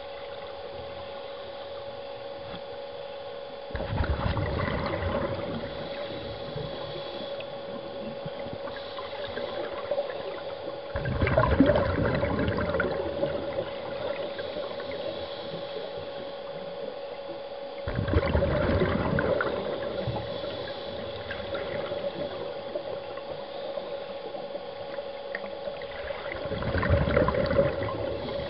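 Scuba diver breathing out through a regulator underwater: four gurgling bursts of exhaled bubbles, about seven seconds apart, over a steady hum with a faint constant tone.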